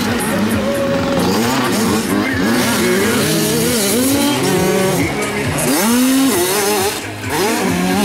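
More than one 65cc two-stroke motocross bike racing, engines revving up and down with the throttle and gear changes. The pitch rises and falls in overlapping sweeps.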